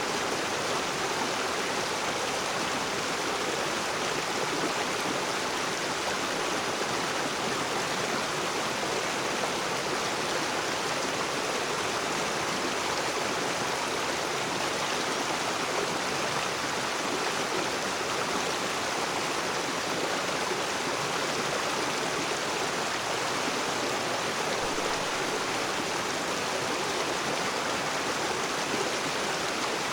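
Rocky river rushing over stones: a steady, even rush of flowing water with no breaks.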